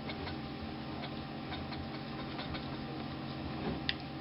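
Faint metallic clicks of a bolt being tightened on a soldering iron's tip, over a steady low hum, with one sharper click near the end.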